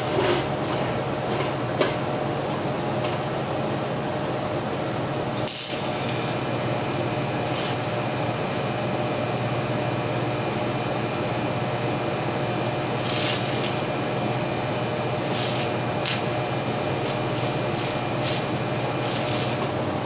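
TIG welding arc running at about 100 amps, a steady hiss with a few short crackles and a brief break about five and a half seconds in, as a fitting is tacked onto a thin non-steel pipe.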